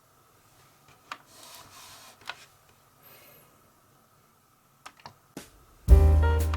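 A few separate faint clicks and light handling noises, then background music starts near the end.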